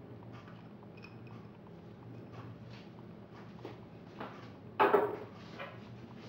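Quiet off-camera kitchen handling: faint scattered clicks and taps, with one short louder clatter about five seconds in and a softer one just after.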